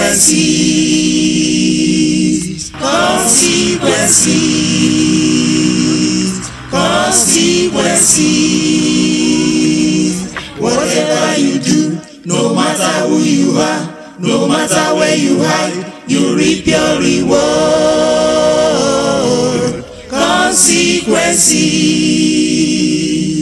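Unaccompanied voices singing a gospel song in long held notes, phrase after phrase with short breaks between.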